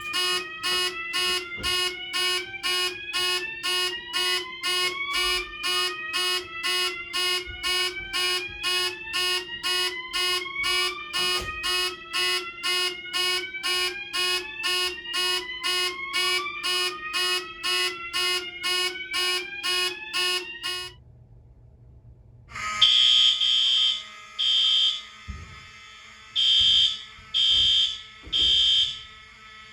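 Simplex 4002 fire alarm sounding a rapid pulsed tone of about two beats a second, with a rising sweep that repeats every few seconds; it cuts off about two-thirds of the way through. After a short pause a Simplex 4305 fire alarm starts, sounding in groups of three blasts, the temporal-three evacuation pattern.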